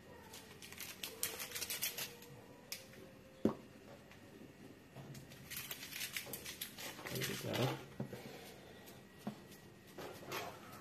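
Scattered rustling and clicking handling noises, with one sharp click about three and a half seconds in.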